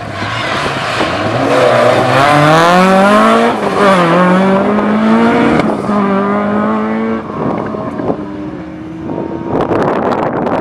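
Mk2 Ford Escort rally car's engine revving hard as it accelerates away through the gears: the pitch climbs, drops sharply at two gear changes, then holds and fades with distance. Wind buffets the microphone near the end.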